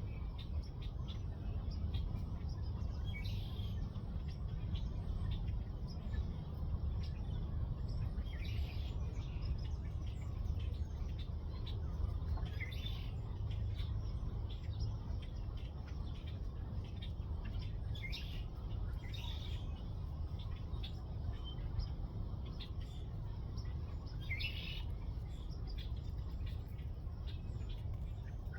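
Birds chirping, short calls every few seconds, over a steady low rumble.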